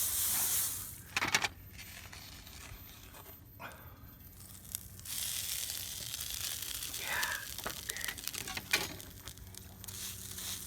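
Food sizzling on a hot flat-top griddle. The sizzle drops away for a few seconds and comes back, with a few sharp handling clicks in between.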